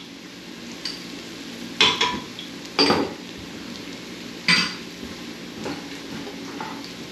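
Metal kitchenware clinking three times, about two, three and four and a half seconds in, each with a short ring. Underneath, onions and garlic sizzle softly in hot oil.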